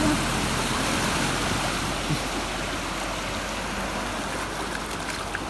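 Steady rushing of flowing floodwater, easing slightly over the few seconds.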